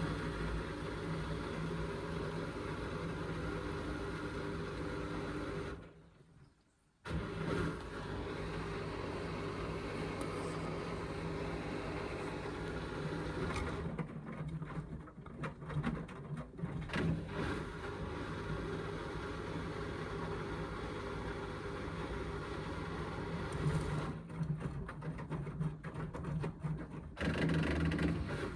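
Indesit washing machine's motor turning the drum with a steady hum during its rinse and intermediate spin cycle. It stops about six seconds in, then starts again, and the sound is uneven in places later on.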